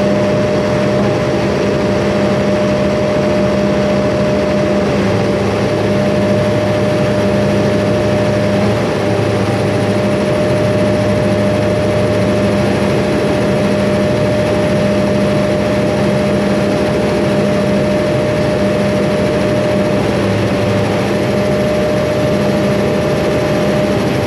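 Soundproofed 500 kVA Doosan diesel generator set running steadily under a load test, stepped from about three-quarters to its full 400 kW: a continuous engine drone with a steady high tone over it.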